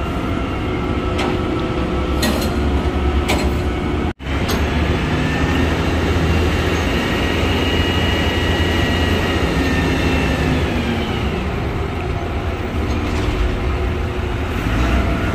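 Steady, loud machinery drone of a ship and port equipment, with a low hum underneath. A few knocks come in the first few seconds, and a high whine rises out of the drone from about five seconds in, fading out near eleven seconds.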